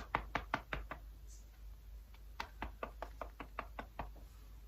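Quick light tapping clicks in two runs, about seven a second: one at the start and another from about halfway through to near the end.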